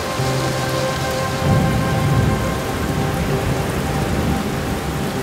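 Steady rain with a low thunder rumble that swells about one and a half seconds in, over soft held music tones.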